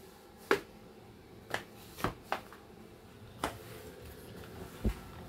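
Sharp clicks and taps from a Swiffer sweeper being moved over a laminate floor, about six, irregularly spaced, with a duller knock near the end.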